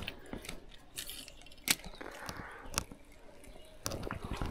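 Faint handling noise from a spinning rod and reel, with two sharp clicks in the middle and a run of small ticks near the end.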